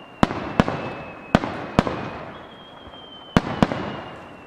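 Starmine aerial firework shells bursting: six sharp reports coming in pairs, each fading away in a long echoing tail.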